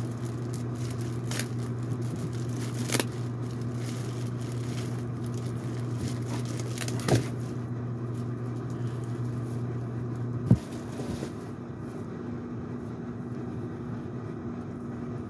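Cardboard box and packaging being handled and rummaged through, with crackling, scraping and a few sharp knocks, the sharpest about ten seconds in. A steady low hum runs underneath and stops at that knock.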